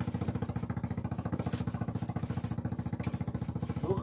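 Small boat engine chugging steadily at a rapid, even beat.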